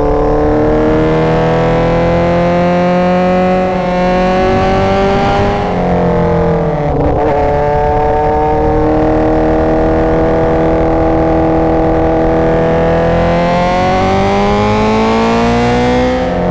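Motorcycle engine running loud while riding. Its pitch climbs slowly, breaks and drops at a gear change about six to seven seconds in, holds steady, then climbs again near the end.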